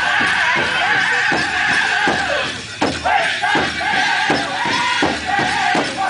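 A powwow drum group singing a grand entry song. Singers' high, held voices ride over the steady beat of a large bass drum struck by several drummers together, about two and a half beats a second. There is a brief lull about halfway through before a hard stroke brings the beat back.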